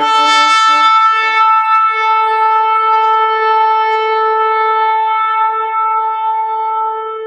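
A shofar sounding one long blast: a lower wavering note for about a second, then a steady higher held note that eases off slightly near the end.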